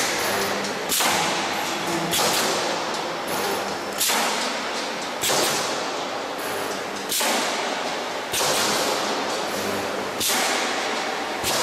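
Multi-head end-seam welding machine for transformer radiator panels cycling: each stroke of its pneumatic welding heads gives a sharp thud followed by a hiss that fades over about a second, repeating every one to two seconds.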